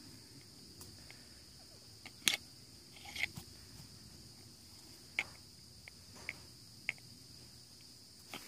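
Crickets trilling steadily, with a handful of short, light clicks and taps from a toy tractor's plastic wheel and axle rod being handled and pushed together. The loudest click comes a little over two seconds in.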